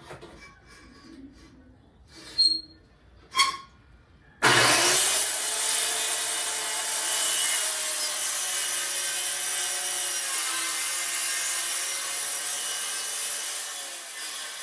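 Two sharp knocks, then about four seconds in a handheld circular saw starts suddenly and runs steadily as it is pushed along a clamped straightedge, cutting through a sheet of 3/4-inch marine plywood for cabinet doors.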